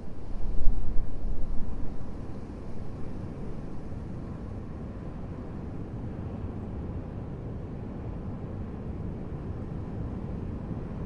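Steady low rumbling noise with no distinct events, louder and surging for the first two seconds or so, then settling to an even level.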